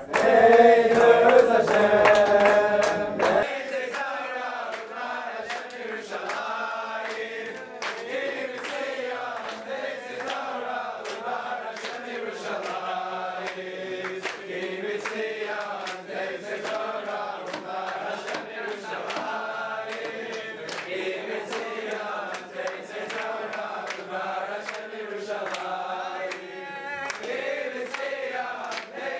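A group of men singing together in a celebratory dance circle, with hand claps through the song. About three and a half seconds in, the sound turns thinner and quieter.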